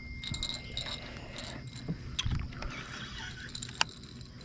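Light clicks, knocks and rattles of fishing tackle being handled on a kayak, with one sharp click nearly four seconds in.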